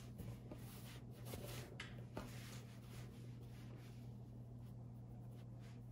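Faint rustling and soft scratching of fabric strips being handled and pulled through as a rag-rug knot is worked by hand, a few strokes in the first two seconds, then quieter, over a steady low hum.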